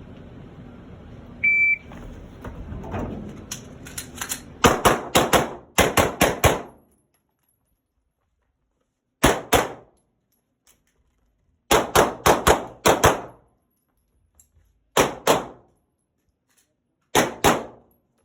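A shot timer's short high start beep, then a Glock 19 9 mm pistol firing rapid strings of shots, with pauses between strings as the shooter moves through an IPSC course of fire. The longest burst comes first, about a dozen quick shots, followed by smaller groups of two to five shots.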